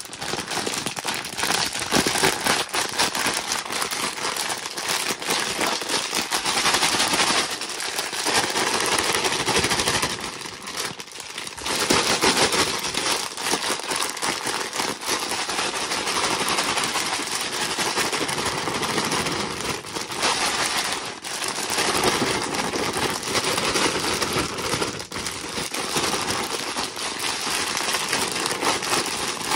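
Colonised popcorn grain spawn being broken up and shaken in a plastic grow bag. Hard kernels clatter and the bag crinkles in a dense, rapid rattle, with a few brief pauses. This is the 'break and shake' that loosens the mycelium-bound clumps and spreads the colonised grain evenly.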